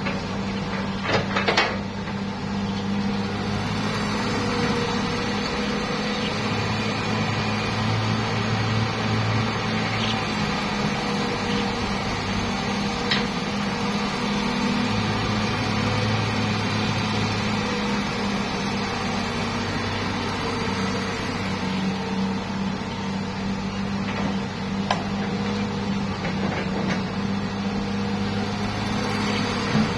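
Hitachi hydraulic excavator's diesel engine running steadily under load as it digs and loads soil into a dump truck, with a few short knocks.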